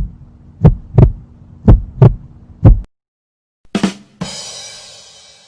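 Heartbeat sound effect: paired lub-dub thumps about once a second over a low hum, stopping about three seconds in. After a short silence comes a brief hit, then a bright ringing tone that fades away over about a second.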